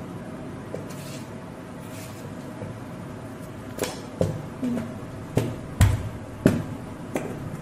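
Low steady background hum, then about six sharp knocks and taps over the second half, the loudest two about a second apart.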